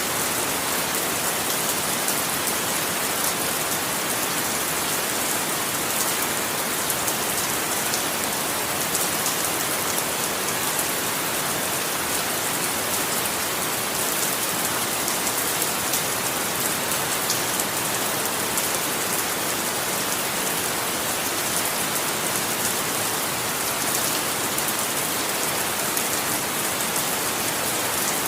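Steady rain falling on a surface, an even hiss with fine drop ticks.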